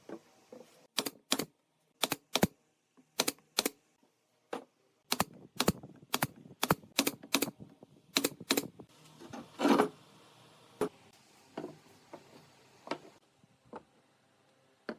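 A series of sharp taps or clicks from hand work on wood, mostly in close pairs and then in a quicker run. About ten seconds in there is a longer, noisier scrape-like sound, then a few fainter taps.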